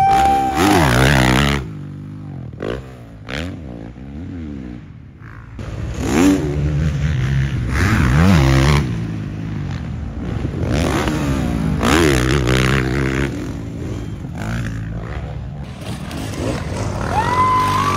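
Dirt-bike engines revving hard in several bursts, the pitch rising and falling as riders accelerate up a hill and along a trail. A rising shout near the end.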